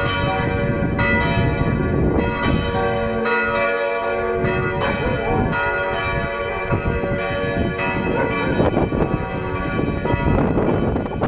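Several church bells pealing together: overlapping, irregular strikes with long ringing tones. A broad rushing noise swells under the bells near the end.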